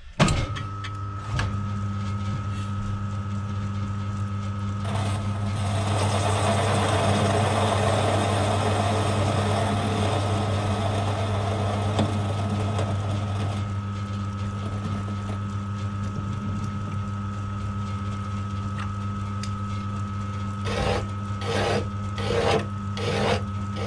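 A small metal lathe's motor and spindle start up and run with a steady hum and a thin whine. From about five seconds in, the turning tool facing the end of an M10 bolt adds a hissing cutting noise for about eight seconds. Near the end, a hand file is stroked across the spinning bolt, several rasping strokes about two a second.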